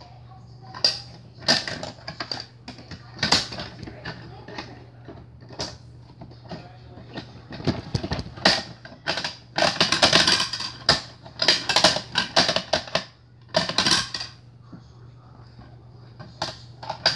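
Plastic clicking and rattling of a toy garbage truck's parts being worked by hand, in irregular bursts that are busiest a little past the middle.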